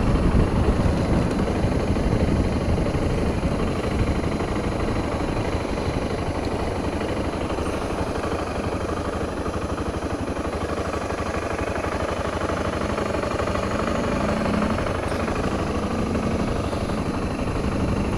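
Motorcycle engine running as the bike moves off and rides along at road speed, under steady wind rush on the bike-mounted camera's microphone.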